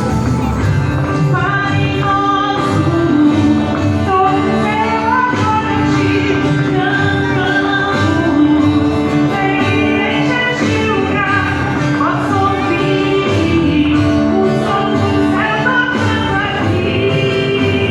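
Live worship music: a choir of female and male voices singing a Christmas cantata song over a band accompaniment.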